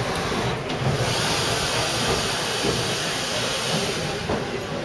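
Steady hiss of steam from the working 1812 Boulton & Watt beam engine, setting in about a second in over a low rumble of the machinery.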